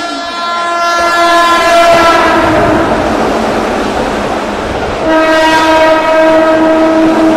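Keihan electric train sounding its horn twice while running through the station, over loud rolling wheel and rail noise. The first blast dips slightly in pitch as it ends; the second, about two seconds later, is held steady.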